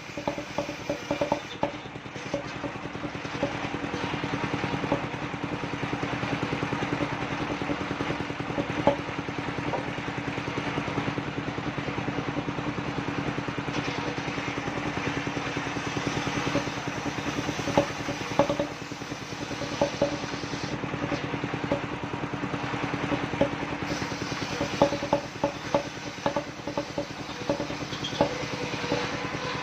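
The engine of a portable circular sawmill running steadily, with scattered sharp knocks and clatter throughout.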